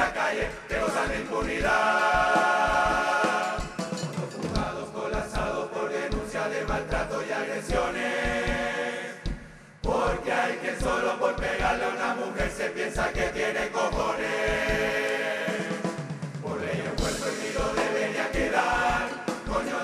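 Carnival murga performing: a massed chorus in held chords over drums keeping a steady beat. The music breaks off briefly about ten seconds in and starts again.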